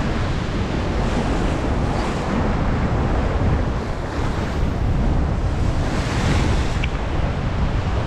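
Sea swell breaking on a rocky shore, with wind buffeting the microphone in a heavy, steady rumble that swells and eases every second or two.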